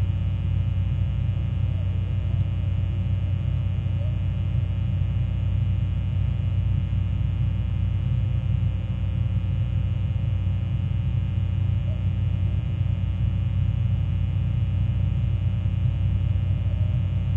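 Fog horn sounding a low, steady drone with many overtones, unbroken and unchanging in pitch or loudness.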